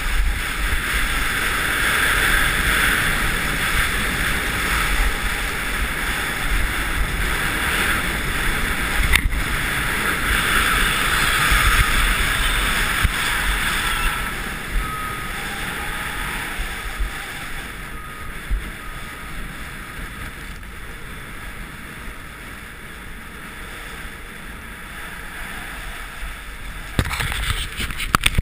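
Skis hissing and scraping over groomed snow at speed, with wind buffeting the camera's microphone in a deep rumble. The rush is louder in the first half and drops off from about halfway, with one sharp knock about nine seconds in and a few knocks near the end.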